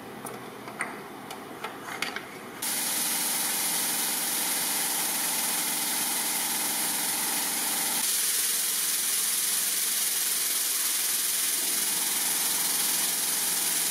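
A few light clicks as a plastic 3D-printed dimple die is set onto an aluminium sheet. About two and a half seconds in, a steady loud hiss with a faint hum starts abruptly and carries on without change.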